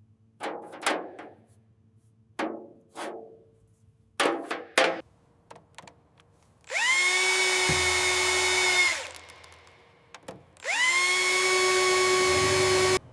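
A power drill running in two bursts of about two seconds each; its whine rises quickly as it spins up, and the second burst cuts off suddenly. A few short knocks and clicks come before it.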